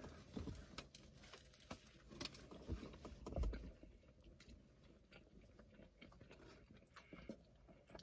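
Faint chewing and biting of a chicken, bacon and sauce sandwich on a roll, with scattered small crunches and mouth clicks. A soft low bump comes a little past three seconds in, and the sounds thin out over the second half.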